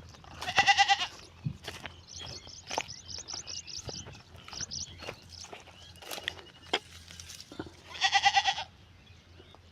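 A farm animal bleats twice, each a quavering call of about half a second, once near the start and once near the end. Between the bleats comes a quick run of high twittering chirps.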